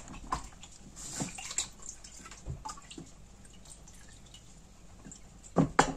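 Plastic cheese moulds being handled over a steel tray: scattered light clicks and taps, with whey dripping from the pressed cheese. A few louder knocks near the end.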